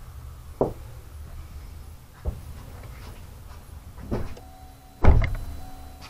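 Several separate knocks and clicks from handling the test wiring and alligator clips around the truck's battery, the loudest a thump about five seconds in. A faint steady hum starts just before that thump.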